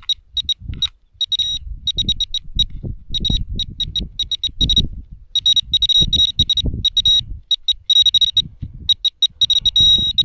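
Handheld metal-detecting pinpointer beeping high-pitched, in quick irregular runs of pulses that close up into an almost steady tone near the end, as it homes in on a buried target in freshly dug soil. Low handling noise underneath.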